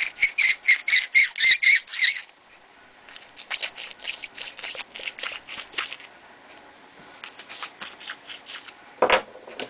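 Brass .30-30 rifle case twisted against a hand deburring tool, the metal scraping and squeaking as the burr is cut from the trimmed case mouth. It starts with a quick run of squeaky strokes, about five a second, then goes on as fainter, uneven scraping.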